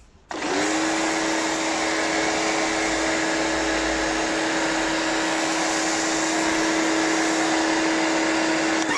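Spear and Jackson pressure washer starting up about a third of a second in, its motor and pump running at a steady hum over the hiss of the snow foam lance spraying, then winding down with a falling pitch at the very end.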